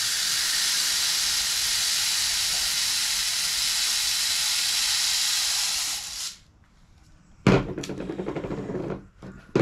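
Lead shot pellets pouring through a funnel into a shotshell reloading press's shot bottle, a steady hissing rattle that stops about six seconds in. Then a sharp knock followed by about a second of rattling, and another knock near the end.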